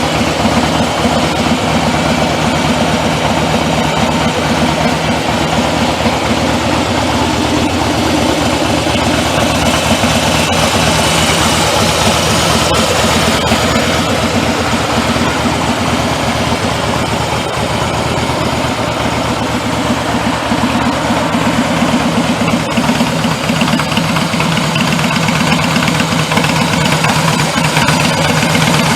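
Harley-Davidson Softail Slim's V-twin engine idling steadily, an even run of firing pulses.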